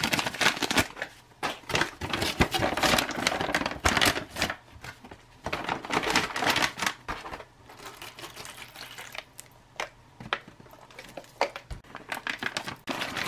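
Foil ration pouches being handled and opened: crinkling and rustling of the foil, with sharp crackles and clicks. The handling is busy for the first half, then thins to sparse, quieter crinkles.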